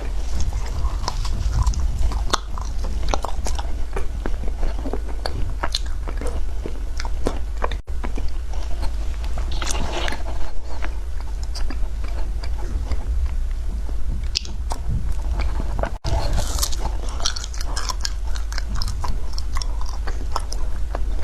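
A person biting and chewing frozen matcha ice close to the microphone, with a steady run of sharp crunches and crackles. There are two brief breaks, near 8 s and 16 s.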